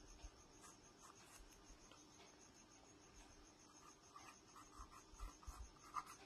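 Faint scratching and tapping of a pen writing on notebook paper, with strokes a little more frequent and stronger in the last couple of seconds.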